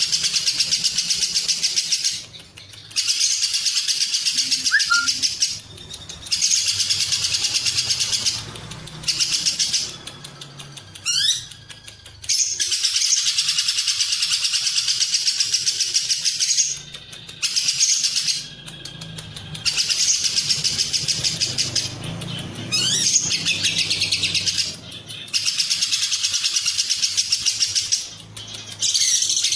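Lovebird ngekek: long bursts of fast, high, rattling chatter, each lasting a few seconds, with short pauses between them and a couple of quick rising whistles. A low background rumble runs underneath.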